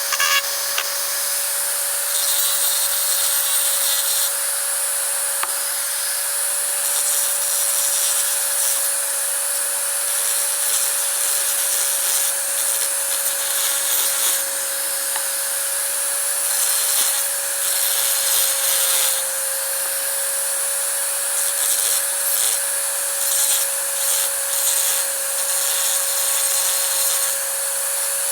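Small electric power tool running at one steady pitch, working the plane being restored, with a rough hiss that swells and fades as it bites the work.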